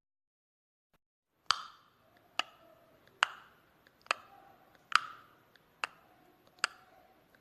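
Clock-ticking sound effect: seven sharp ticks a little under a second apart, each with a short ringing tail, starting about a second and a half in.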